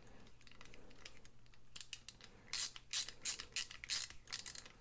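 Ratcheting hand screwdriver driving small screws into a G10 knife scale. About halfway in, a quick run of short rasping strokes, about four or five a second, as the ratchet is worked back and forth.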